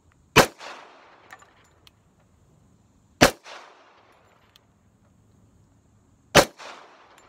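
Springfield Armory 1911 Mil-Spec .45 ACP pistol firing Remington UMC rounds: three single shots about three seconds apart, each followed by a brief echo. Faint small clicks fall between the shots.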